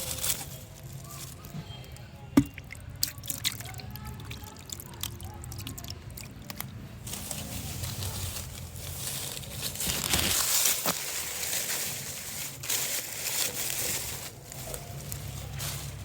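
Water sloshing and splashing as hands work through shallow, muddy water, with scattered sharp clicks. The splashing grows louder for a couple of seconds about ten seconds in.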